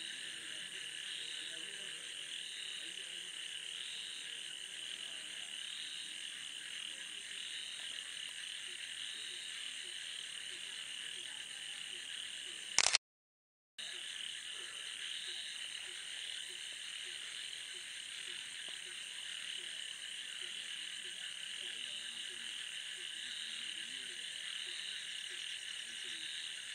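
Night chorus of frogs in a paddy field: a steady, dense high-pitched trilling with many small croaks lower down. About halfway through, a brief loud click and the sound cuts out for about a second before the chorus returns.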